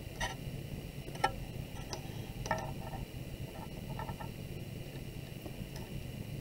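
A few light clicks and taps as a metal ruler is laid down and shifted on a clay slab and wooden board, the sharpest about a second in.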